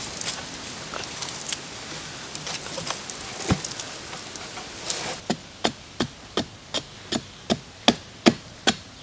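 A long wooden pole driven into hard ground to dig, a steady run of dull strikes about three a second from about five seconds in. Before that, scattered knocks and scrapes.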